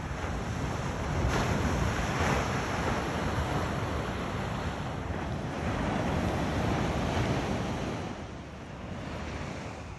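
Gentle surf washing onto a sandy beach, swelling louder twice, with wind buffeting the microphone.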